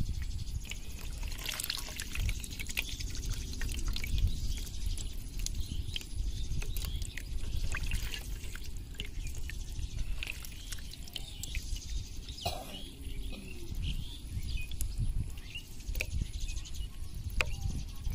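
A crowded mass of fish fry thrashing in shallow water: many small splashes, drips and crackling flicks at the surface, with a steady low rumble underneath.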